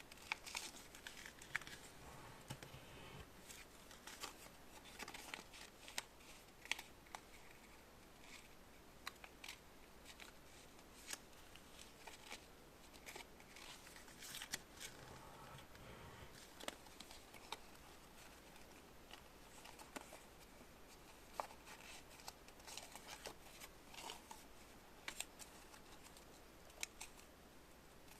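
Faint, irregular clicks and light rustling of small objects being handled, in a quiet small room.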